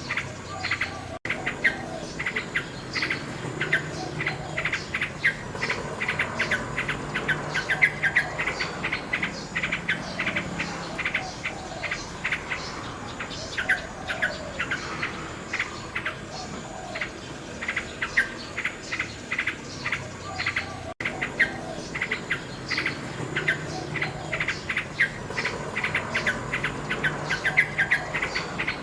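Common nightingale singing: rapid, varied phrases of short clicking and trilled notes that repeat in quick series. The song is cut by two brief dropouts about twenty seconds apart.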